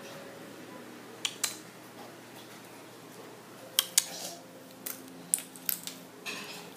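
Scattered sharp clicks and taps of small hard objects, about eight of them at irregular intervals, in a small room.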